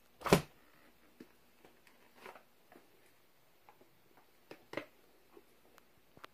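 Plastic storage bin lid shutting with one sharp knock just after the start, then faint scattered clicks and rustles of handling, with a second, smaller knock nearly five seconds in.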